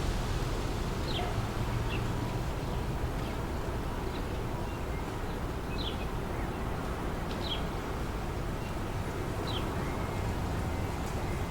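Wind blowing steadily through trees with a low rumble of wind on the microphone, while a bird gives short, high chirps every second or two.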